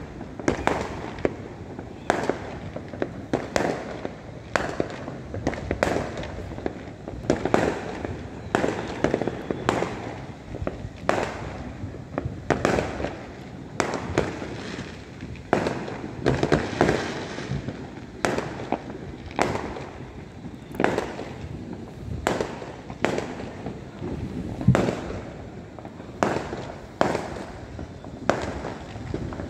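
Aerial firework shells bursting: an irregular run of sharp booms, more than one a second, over a continuous rumble of further bursts.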